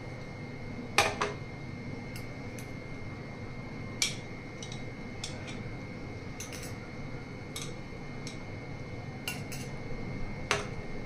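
Glass tumblers and a steel spoon clinking and knocking as the glasses are handled and set down on a serving tray: a scattering of short, sharp clinks, the loudest about a second in.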